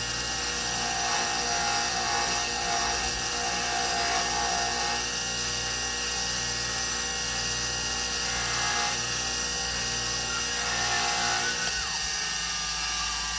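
Small electric power tool running steadily, with a higher tone that drops in and out several times and stops near the end.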